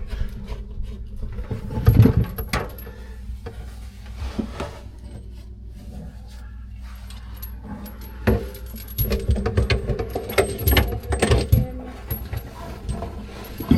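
Metal clinks and knocks of plumbing tools and fittings being handled inside a cramped under-sink cabinet, with a loud knock about two seconds in and a busy run of clicks and clatter in the second half.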